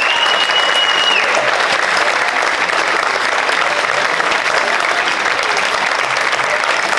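Theatre audience applauding steadily, with one high, steady whistle held for about a second at the start.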